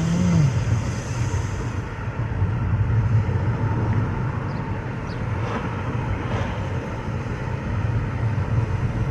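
Car on the move, heard from inside the cabin: steady engine and road rumble.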